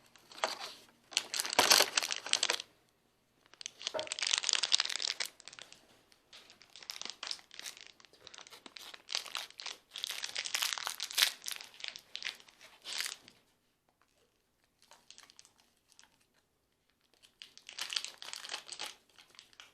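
Packaging crinkling and tearing in irregular bursts of crackles as a dog's advent calendar door is opened, with a quiet pause in the middle.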